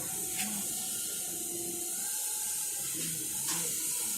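Steady high hiss, with a couple of faint clicks about half a second in and again near the end.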